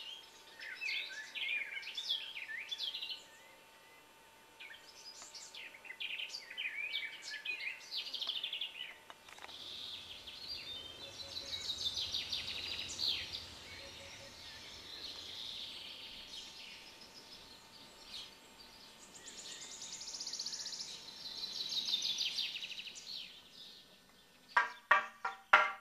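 Several songbirds singing, with quick chirps and trills. Near the end, a wooden toaca (monastery semantron) starts being beaten with a mallet in a rapid rhythm of sharp knocks.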